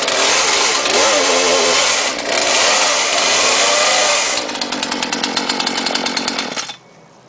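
Brand-new Poulan Pro PP4218AV 42cc two-stroke chainsaw, just started for the first time, revved hard several times with the pitch rising and falling. About four and a half seconds in it drops back to a lower, pulsing idle, then cuts off abruptly near the end.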